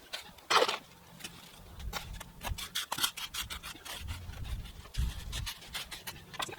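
A hand tool scraping and working wet concrete in a form, smoothing it over the rebar and into the corners: a run of quick, gritty scrapes several times a second.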